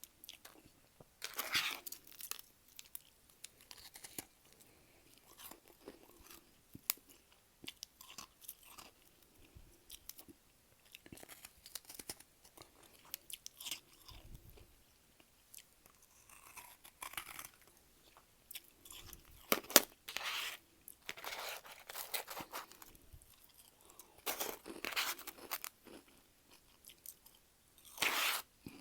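Close-up chewing of freezer frost and ice: irregular bursts of crisp, crackly crunches separated by short pauses, the densest clusters about a second and a half in, around two thirds of the way through, and near the end.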